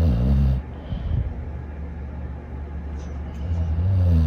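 A dog snoring: one low snore at the start and another, longer one near the end, about four seconds apart.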